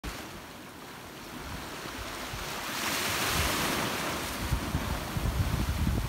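Small Black Sea waves washing over a shallow shore, the hiss swelling as a wave comes in about halfway through. Wind buffets the microphone with low gusts in the second half.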